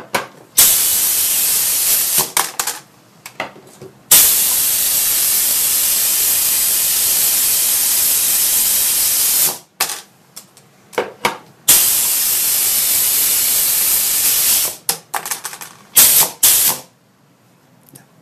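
Compressed air hissing from a pneumatic robot gripper, switching on and off abruptly in three spells, the longest about five seconds, with short clicks and clatter in between.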